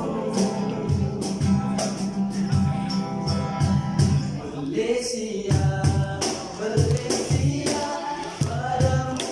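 Live acoustic band playing: a male voice sings over a strummed acoustic guitar, and a cajon keeps the beat with deep bass thumps and sharp slaps.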